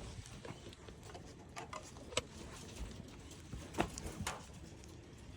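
Hens moving about the coop: faint scattered taps and rustling, like pecking and scratching, with a few sharper clicks about two and four seconds in.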